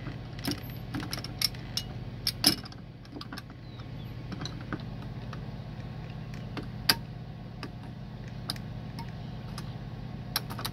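Scattered clicks and taps of a camper's plastic-and-metal door latch and handle being fitted back onto the door and pressed into place, over a steady low hum.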